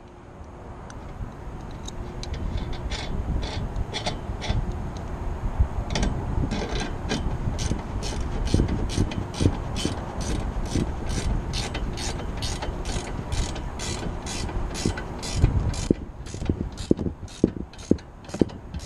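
Ratchet wrench clicking as a bolt on the antenna's mounting bracket is turned, a steady run of about three clicks a second that thins out to a few spaced clicks near the end.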